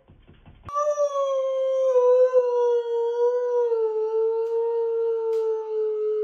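A dog howling: one long unbroken howl that starts about a second in and sinks slowly in pitch.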